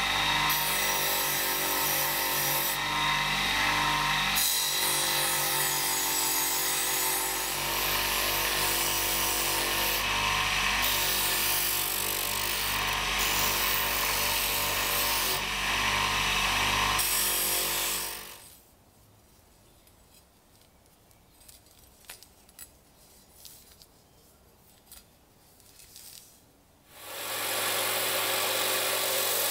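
Electric bench grinder running with a wire brush wheel scrubbing rust off a steel knife blade; the grinding hiss comes and goes as the blade is pressed on and lifted off. The motor stops about two-thirds of the way through, leaving a few light clicks, and near the end a belt grinder starts up and runs.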